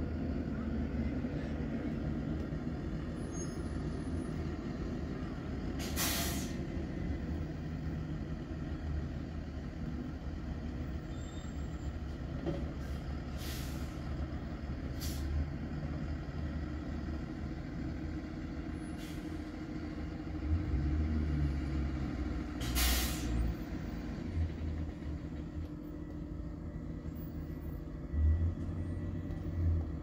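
Diesel Thomas Built school buses running at idle and pulling around, with a steady low engine rumble that swells a few times. Air brakes hiss sharply four times.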